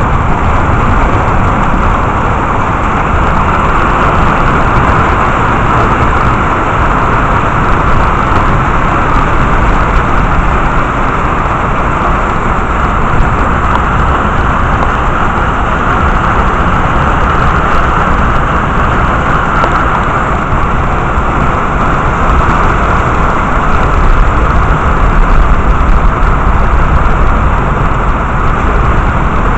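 Heavy rain falling steadily during a thunderstorm: a loud, even hiss with a low rumble underneath.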